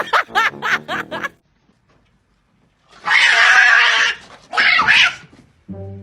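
Animal calls: a few short pitched calls that slide up and down, then a pause, then two loud, harsh, hissing blasts, the first over a second long and the second shorter.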